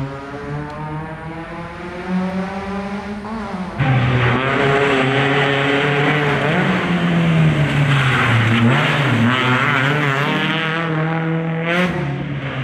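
Rally car engine revving hard, its pitch rising and falling as it works through the gears, getting suddenly louder about four seconds in.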